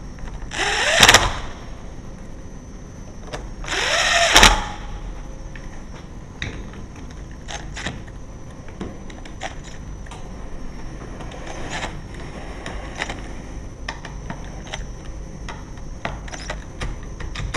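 Cordless drill-driver driving screws into mortice lock fittings: two short runs, about a second in and about four seconds in, each motor whine rising as it spins up, followed by scattered clicks and taps of the bit and screws.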